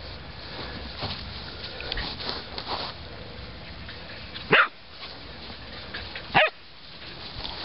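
Puppy barking twice, two short sharp barks about two seconds apart, over a faint low background.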